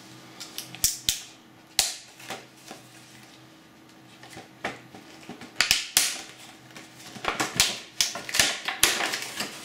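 Clear plastic blister packaging being handled and pried open by hand, heard as irregular sharp clicks and crinkles. They are sparse at first and come thicker in the second half.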